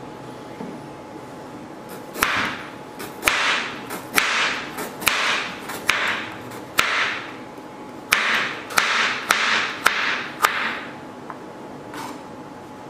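Chef's knife slicing a piece of galangal root into rounds on a plastic cutting board: about a dozen cuts at a steady pace, each a sharp knock with a short rasping tail, starting about two seconds in and stopping about ten and a half seconds in, with one faint tap near the end.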